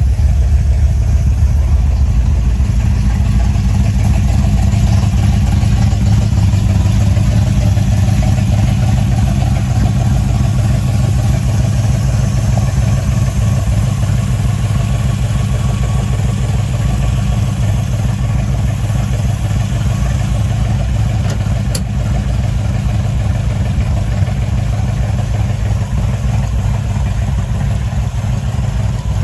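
1965 Ford Mustang's K-Code HiPo 289 V8 idling steadily through its Arvinode dual exhaust, a deep even rumble.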